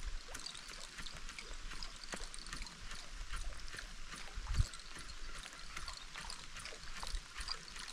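Heavy rain falling, the drops striking the camera and its surroundings as a dense, irregular spatter of small ticks, with one dull knock a little past halfway.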